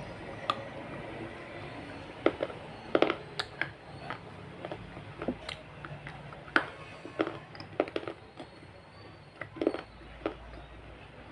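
A person eating close to the microphone, chewing with the mouth open, with irregular sharp wet smacks and clicks.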